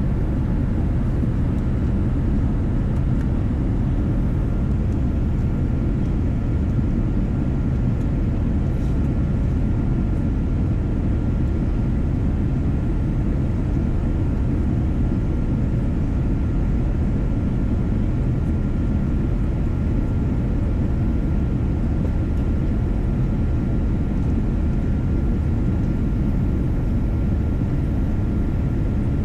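Steady low rumble of a Boeing 787 airliner heard from inside the cabin, engine and airflow noise with a faint steady tone over it and no change in level.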